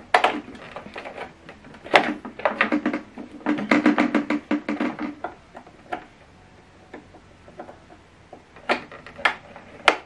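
Plastic clicks, knocks and rattles as an HDMI cable plug is worked and squeezed into a cramped port on the back of a soundbar, with the casing knocking in hand. A dense run of rapid clicks comes in the middle, and a few single taps near the end.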